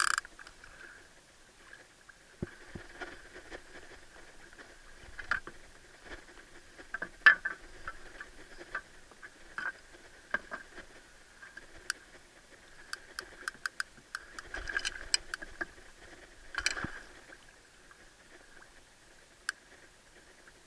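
Gaff and tackle knocking and clicking against a small boat's side while a big Atlantic cod is gaffed at the surface: scattered knocks, a sharp one about seven seconds in, and a quick run of ticks a little past halfway.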